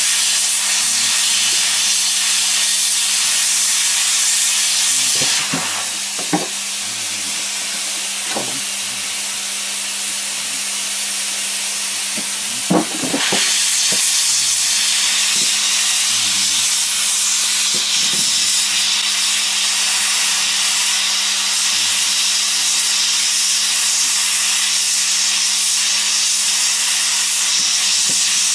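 Hot-air plastic welding gun blowing a steady hiss of compressed air through its nozzle as it melts a polyethylene filler strip into a barrel seam, over a steady low hum. The hiss drops a little for several seconds in the middle, with a couple of faint knocks.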